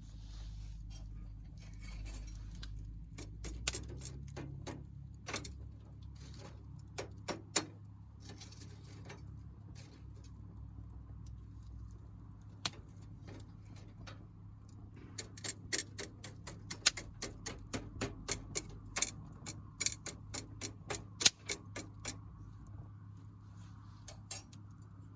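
Small wood fire crackling: scattered sharp pops and snaps, thickening into a quick run of crackles about fifteen seconds in, over a low steady hum.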